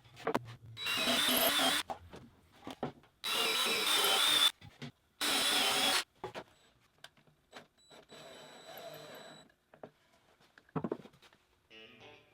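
Cordless drill run in three short bursts of a second or so each, drilling pilot holes through a knob-placement jig into drawer faces, followed about two seconds later by a quieter, slower run of about two seconds. Small knocks and clicks come in the gaps between runs.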